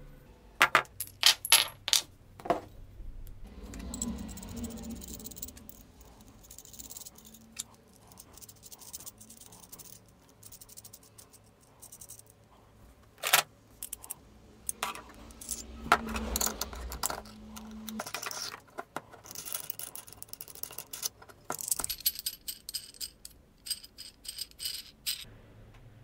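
Metal burner parts (a steel bracket, a pipe reducer, an M10 bolt, nuts and a washer) clinking and rattling as they are handled and fitted together. There are several sharp clicks in the first few seconds and a single loud clink about halfway through. Near the end comes a run of jingling clinks with a short metallic ring.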